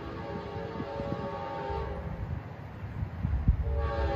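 Train horn sounding a chord of several notes, breaking off about two seconds in and blowing again near the end, over the low rumble of an approaching locomotive that grows louder.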